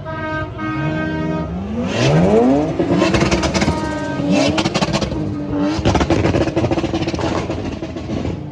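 A car engine revved hard. It runs steadily at first, the pitch climbs about two seconds in, then it is held high twice, with rapid sharp crackling pops over the top.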